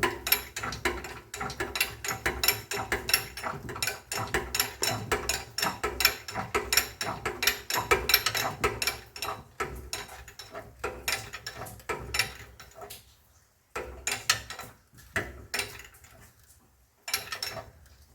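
Shop press being worked on a control-arm bushing, making rapid mechanical clicking as the new bushing is pressed in and drives the old one out. The clicking thins to a few separate clicks after about twelve seconds.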